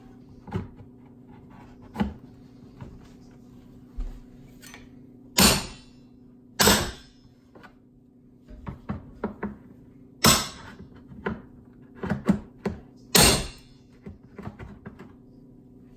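Hammer tapping a flat screwdriver to pry loose the snap clips holding the plastic side plate of a Suncast Aquawinder hose reel housing: four loud sharp knocks and many lighter clicks and taps from the hammer, screwdriver and plastic.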